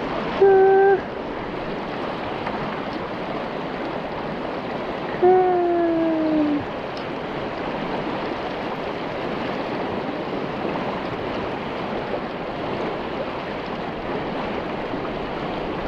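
Steady rush of a large river running high past a stony bank. Two short wordless vocal sounds rise above it: a brief one about half a second in, and a longer one falling in pitch around five seconds in.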